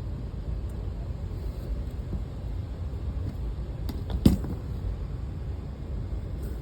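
Steady low rumble of air moving through an HVAC terminal air box and its ductwork. One sharp knock comes about four seconds in.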